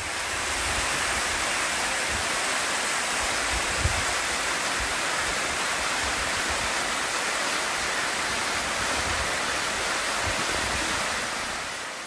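Waterfall pouring steadily into its pool, a continuous rush of falling water that fades in at the start and fades out near the end.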